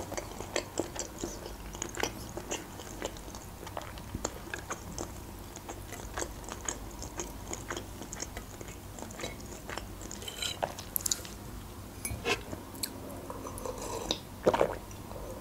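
Close-miked chewing of soft boiled meat and noodles: small, irregular wet clicks and smacks of the mouth. Near the end, a sip from a coffee mug.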